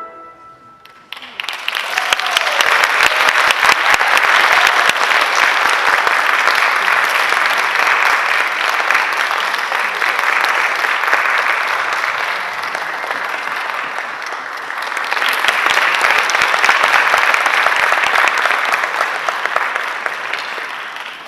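Audience applauding, starting about a second in, easing briefly past the middle, swelling again, and fading near the end.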